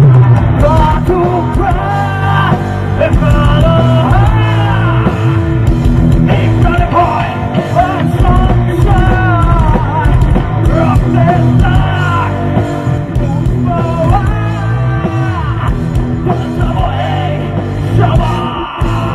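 Live rock band playing: a male singer sings over electric guitars, bass guitar and drums, all amplified through stage speakers.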